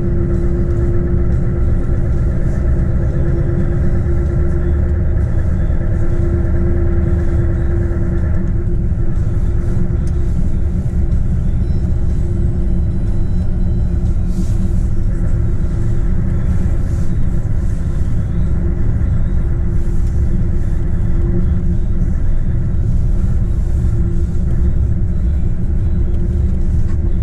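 A 44-tonne articulated truck driving on an icy road: a steady low rumble of engine and road noise with a constant hum, some higher engine tones fading about eight seconds in.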